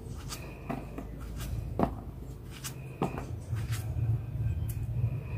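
Kitchen utensils and containers being handled: about ten sharp knocks and clicks, the loudest a little under two seconds in, over a low hum that grows louder in the second half.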